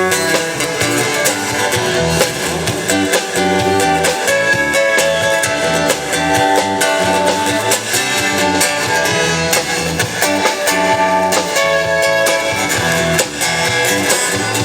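Live band music with a bass guitar playing a steady groove under guitar, with regular beat strokes throughout.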